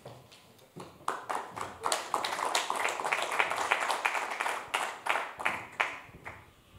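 A small group of people clapping, starting about a second in and dying away near the end.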